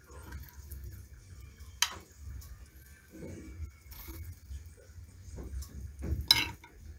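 A metal spoon clinking and scraping against a baking dish while baked fish fillets are lifted and moved. There are two sharp clinks, one about two seconds in and a louder one near the end, over a low steady hum.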